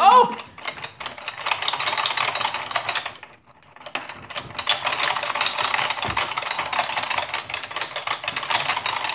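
Rapid, continuous clicking and rattling of plastic pump buttons on a Hydro Strike tabletop water game, pressed over and over to squirt water at the ball. It stops briefly a little after three seconds in, then starts again.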